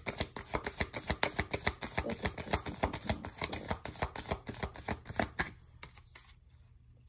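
A deck of oracle cards shuffled by hand: a rapid run of card clicks and riffles that stops about five and a half seconds in.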